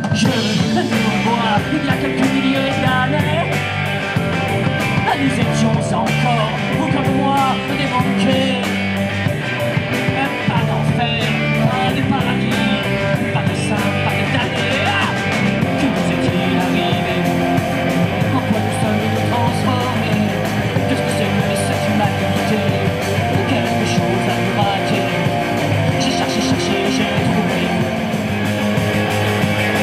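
Rock band playing live: electric guitars and a drum kit at a loud, even level.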